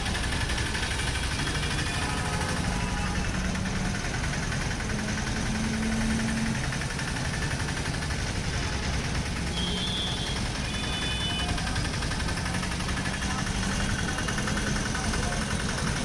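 Busy street traffic in slow, congested flow, with the engines of buses, auto-rickshaws and motorbikes running close by as a steady hum. Two or three short high beeps sound about ten seconds in.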